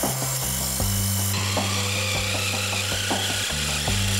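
Twist drill cutting clearance holes through brass clock plate, the bit shearing off brass chips with a hiss and a faint wavering squeal.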